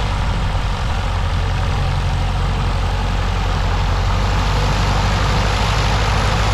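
Light aircraft's piston engine and propeller running steadily, a low even drone that grows a little louder toward the end.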